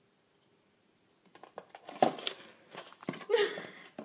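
Cardboard box knocking and scraping on a tile floor in short bursts as it is shoved about, after a near-silent first second.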